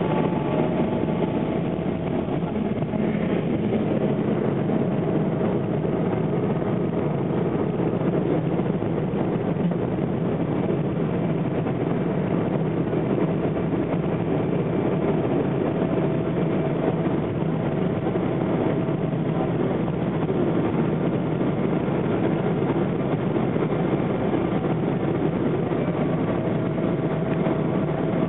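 Steady cabin noise inside a Boeing 777 on approach: the even rush of engines and airflow through the fuselage, with a faint steady whine underneath.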